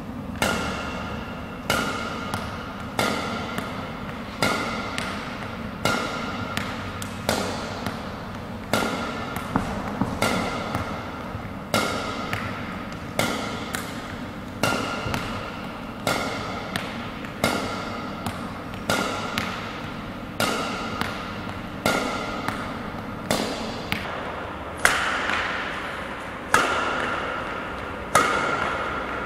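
Badminton racket striking shuttlecocks in a steady series of defensive lifts, one sharp hit about every second and a half, each ringing on in the echo of a large sports hall.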